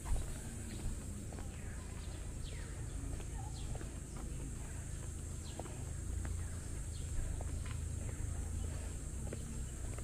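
Birds calling in short, falling high notes, a few every couple of seconds, over a steady low rumble and a steady high hiss.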